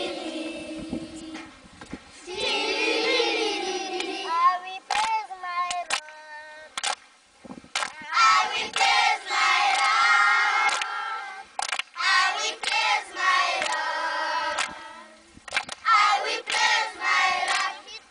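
A group of schoolchildren singing together in phrases of a few seconds with short pauses between them, with sharp hand claps here and there.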